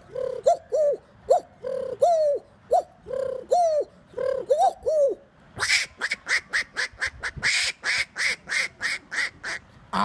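A person imitating bird calls with the voice: a string of short calls that rise and fall in pitch, then, about five and a half seconds in, a quick run of short, higher-pitched chirps at about four a second.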